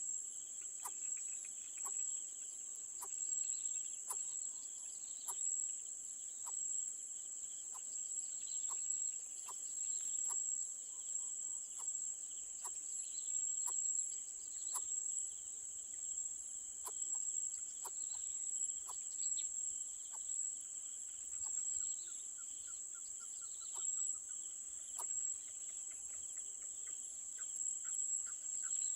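Steady high-pitched chorus of insects, with faint wavering chirps and soft ticks about once a second.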